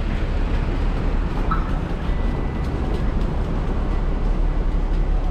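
Road traffic on a busy city street: vehicle engines running steadily with a strong low rumble.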